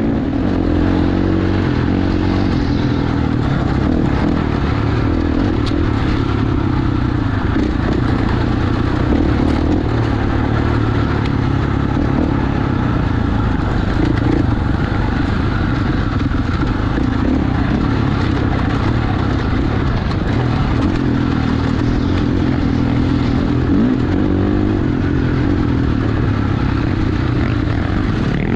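2019 Husqvarna FC450's single-cylinder four-stroke engine running hard under race load through an FMF titanium silencer, the revs rising and falling a little as the throttle is worked on a dirt trail.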